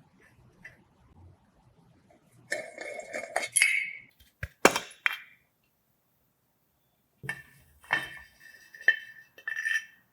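Small metal parts clinking and knocking. A run of clinks is followed by a few sharp knocks about halfway. After a pause come more clinks, some with a short ringing tone.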